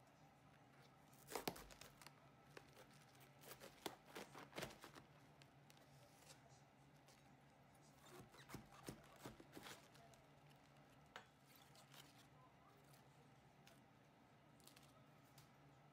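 A knife crunching into a whole raw cabbage on a wooden cutting board and its crisp leaves snapping and tearing as they are pulled apart. It comes as clusters of sharp crackles, loudest about a second and a half in.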